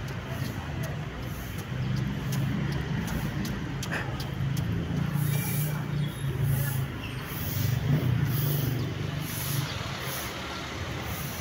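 Road traffic: a motor vehicle's engine running with a steady low hum.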